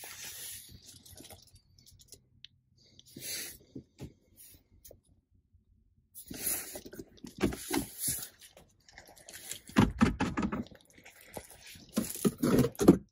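Hand-handling noises on a pickup truck's plastic center console: scattered clicks, knocks and rustling. A heavier thump comes about ten seconds in, as the storage bin is handled.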